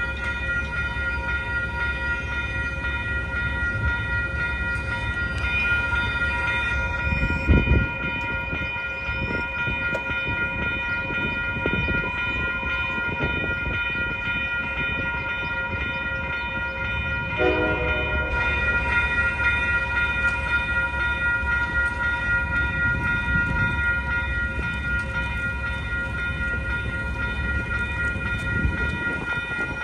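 Railroad grade crossing bells, including a Safetran mechanical bell, ringing steadily as the crossing is activated. A loud thump comes about a quarter of the way in, a brief horn blast a little past halfway, and the low rumble of the approaching light rail train builds near the end.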